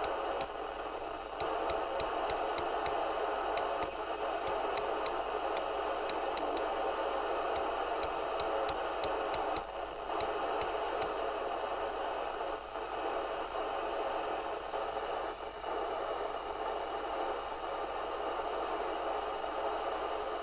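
SMC Oscar 1 FM CB radio's receiver hissing steadily through its speaker with the squelch open on an empty channel, with faint regular ticks through the first half and a few brief dips in the hiss.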